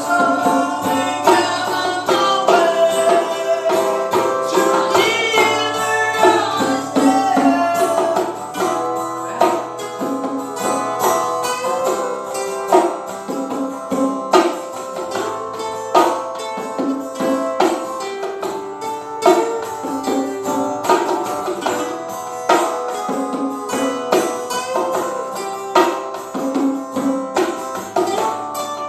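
A band playing live music, with plucked string instruments over a steady beat; a wavering lead melody stands out during the first several seconds.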